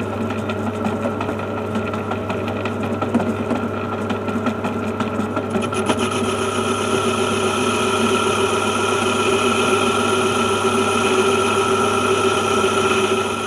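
Metal lathe running while turning down an aluminium part held on a mandrel: a steady motor hum with a scraping cutting noise over it. The cutting noise grows louder and higher-pitched about six seconds in.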